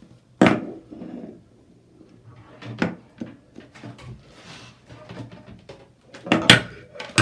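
Clicks and clacks of small plastic and metal parts being handled as the bidet's faucet adapter is released and its connector pulled out. There are louder knocks about half a second, three seconds and six and a half seconds in, with light rattling between them.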